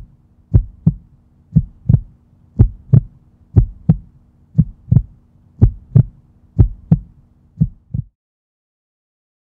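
Heartbeat sound effect: a double thump (lub-dub) about once a second, over a faint steady low drone, stopping about eight seconds in.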